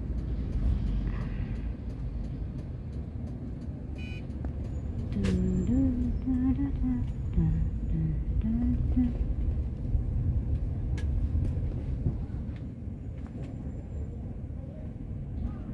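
Steady low rumble of a taxi's engine and road noise heard from inside the cabin while it moves slowly through city traffic, with faint voices and a sharp click about five seconds in.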